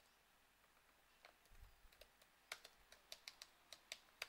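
Faint keystrokes on the HP Elite x2 1012 G1's detachable keyboard: a dozen or so short, irregular clicks starting about a second in, as keys are pressed to test the keyboard, which is now responding.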